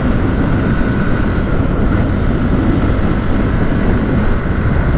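Honda CG 150 Titan's single-cylinder four-stroke engine running on the move under a steady rush of wind and road noise. The owner hears a small abnormal noise in the engine that he suspects comes from a damaged cylinder head.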